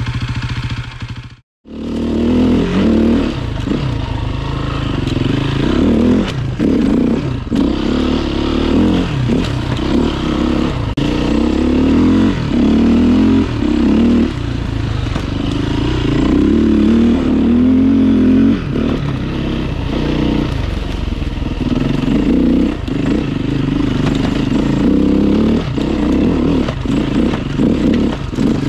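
Beta RR 450 enduro bike's four-stroke single-cylinder engine being ridden along a forest trail, the throttle opening and closing over and over with short dips between. There is a brief dropout about a second and a half in.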